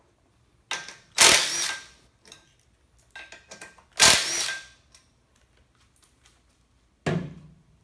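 Cordless drill run in short bursts of about half a second, backing out the valve cover bolts on a Honda GCV160 mower engine, with a short clatter near the end.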